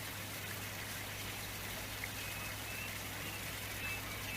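Steady running-water noise like a stream or light rain, with faint short high chirps repeating a few times from about two seconds in.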